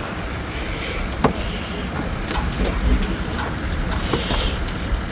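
Mini excavator engine running with a steady low rumble while the machine is worked at throttle, with scattered metal knocks and clicks.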